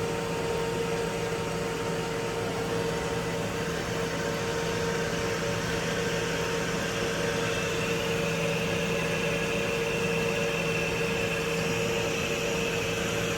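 Korky 528 anti-siphon toilet fill valve running wide open, a steady hiss of water refilling the tank with a constant hum through it; a higher whine joins about halfway through.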